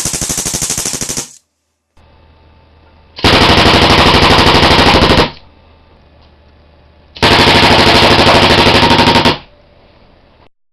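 Miniature high-pressure-air machine gun prototype, running on 850 PSI, firing 4.5 mm steel BBs in three rapid automatic bursts of about two seconds each. The first burst is already going and stops about a second in; the second and third, around four and eight seconds in, are louder.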